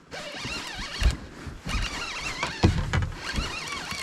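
Spinning fishing reel being cranked to bring in a hooked fish, giving a zipper-like whir with wavering high squeals, the reel stiff with cold. Two dull knocks, about a second in and near three seconds in.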